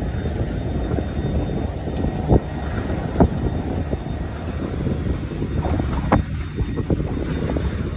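Wind rumbling on the microphone aboard a small boat at sea, with a few sharp knocks about two, three and six seconds in.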